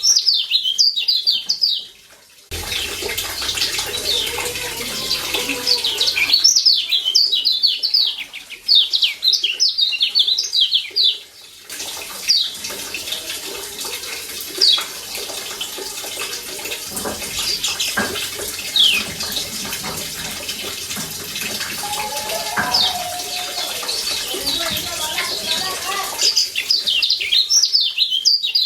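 Kecial kuning (Lombok yellow white-eye) calling in quick bursts of rapid, high 'ciak' chirps, against a steady sound of running, splashing water. In the longer water stretches the chirps come only now and then, singly.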